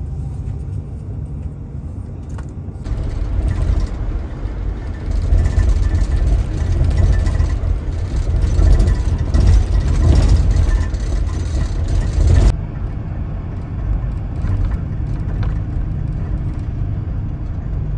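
Engine and road rumble of a small passenger minibus, heard from inside the cabin while it drives. The noise jumps louder about three seconds in and drops back abruptly a few seconds before the end.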